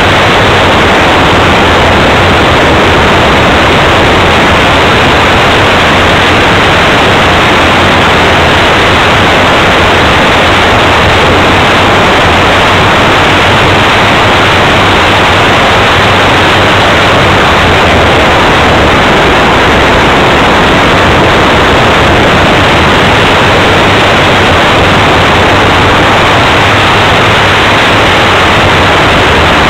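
Loud, steady rush of air and propeller noise from a radio-controlled RV-4 model in flight, picked up by a small camera mounted on the model's wing. The sound is overloaded and does not change.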